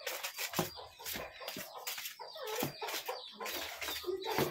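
Chickens clucking in short, scattered calls, mixed with a few sharp clicks.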